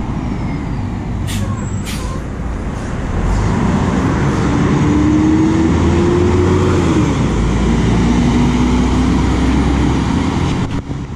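Mercedes-Benz O-500MDA articulated bus pulling away and accelerating, its diesel getting louder about three seconds in after a couple of sharp clicks. A whine climbs in pitch, falls back at a gear change, then climbs again.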